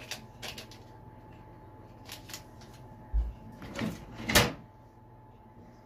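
Kitchen handling noises at a table: a few light clicks and rustles, a short low bump about three seconds in, and a louder knock a little past four seconds as things are handled and set down.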